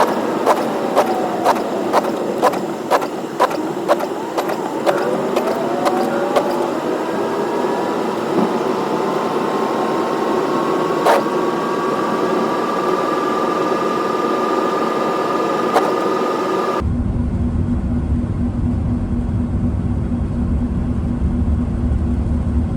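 Car driving, with steady engine and road noise and a faint rising whine; for the first six seconds or so, an even ticking about twice a second. Near the end the sound changes abruptly to a heavy low rumble of wind buffeting the microphone.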